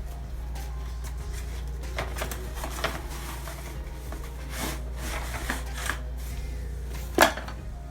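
Handling noises of an unboxing: scattered rustles and clicks, with one sharp knock about seven seconds in, over a steady low hum.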